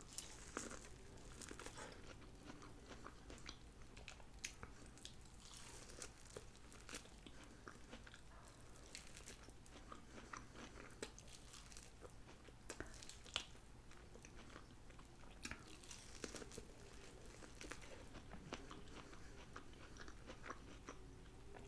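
Faint chewing and crunching of crispy fried chicken wings, a scattering of small crunches and mouth clicks.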